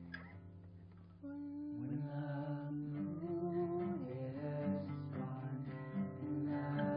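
Music with guitar, quieter at first, then fuller and louder about a second in, with a sustained melody line moving from note to note.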